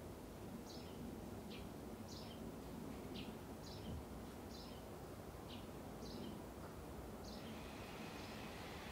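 Faint bird chirps: short, high notes repeated roughly once or twice a second over a low background hiss, stopping about seven seconds in.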